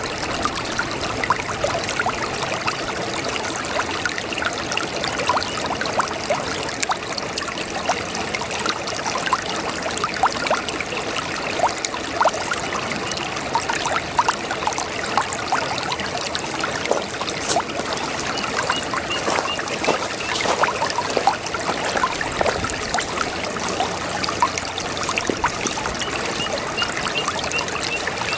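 A babbling brook: water flowing and trickling steadily, with many small gurgles and splashes.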